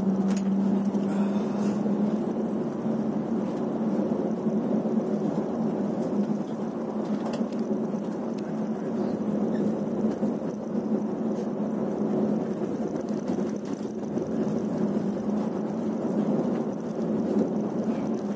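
Inside a moving bus: a steady engine drone with tyre and road noise, and a few light rattles.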